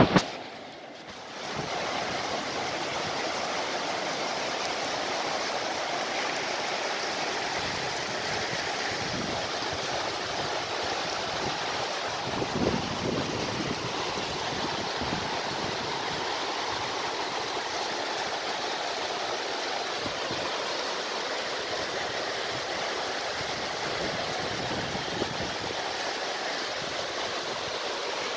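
Heavy rain falling steadily, a continuous even hiss. A brief knock right at the start.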